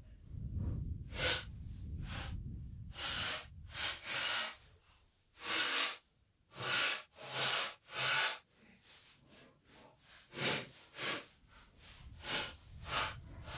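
About a dozen short, irregular crunching rustles of dry leaves underfoot as a person steps and shifts around, with a low rumble in the first two seconds.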